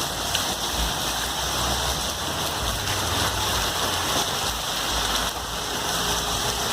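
Heavy downpour of rain, a steady unbroken hiss of rain pouring down.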